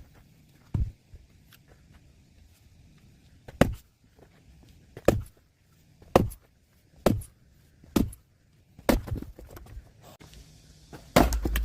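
Axe striking firewood: about eight heavy, sharp thuds, mostly about a second apart, with a longer gap near the start.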